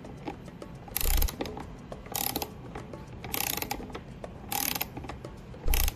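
72-tooth ratcheting box-end wrench clicking in five short bursts about a second apart as it swings back and forth on a 17 mm hex bolt head that is 70% rounded off; each burst is the pawl ratcheting over the gear teeth on the return stroke. The first and last bursts are the loudest, with a dull knock.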